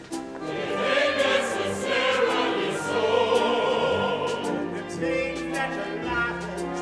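Opera chorus singing full-voiced over an orchestra. About five seconds in the voices fall away and the orchestra carries on with held notes over a low bass line.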